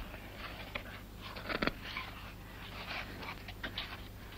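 Pages of a large hardback book being handled and turned: soft, scattered paper rustles and crackles, loudest about a second and a half in.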